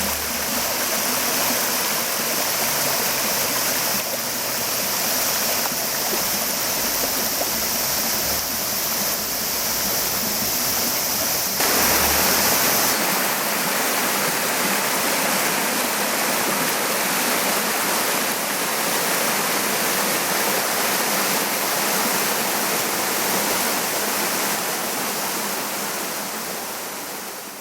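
Spring-fed stream of Mount Fuji groundwater welling up and running over lava rock, a steady rush of flowing water. The uploader thinks the spring is running fuller than usual. The sound changes in tone about twelve seconds in and fades near the end.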